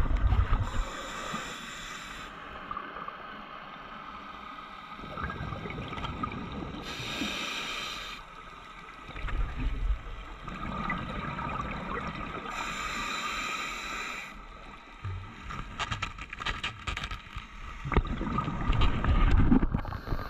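Scuba diver breathing underwater through a regulator: a rush of exhaled bubbles three times, about six seconds apart, with quieter hiss between. Low bumps of handling, and a run of clicks and knocks near the end.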